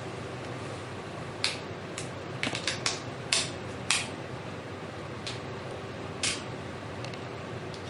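Plastic back cover of an HTC HD7 phone clicking and snapping as it is unclipped and slid off the handset: a scattered series of sharp clicks, bunched together in the first half, over a steady background hiss.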